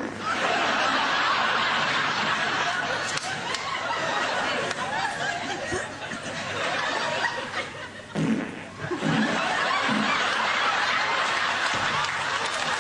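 Audience laughing heavily and continuously, with a short lull about eight seconds in.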